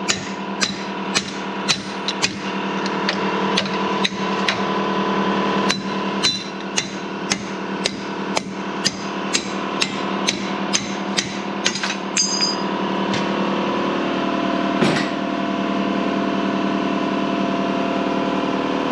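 Hammer blows on a steel tube used as a drift, driving the old cutless bearing out of a boat's P-bracket held in a bench vise. The strikes come steadily at about two a second for some eleven seconds, then a few scattered blows, the last near the fifteenth second.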